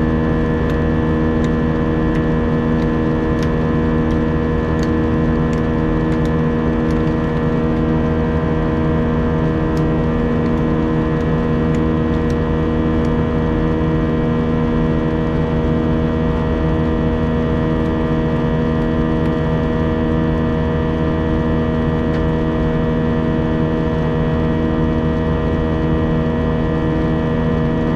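Steady drone of an Airbus A320's engines and airflow heard inside the cabin, a held hum of several steady tones over a rushing noise, with faint small clicks now and then.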